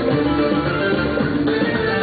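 Music for belly dancing, with plucked string instruments over a steady beat.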